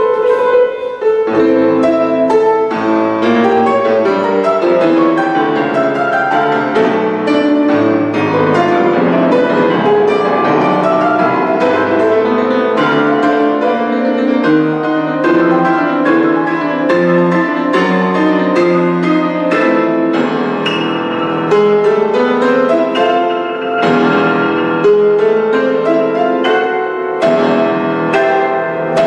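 Grand piano played solo: a toccata, with quick, densely packed notes struck without a break.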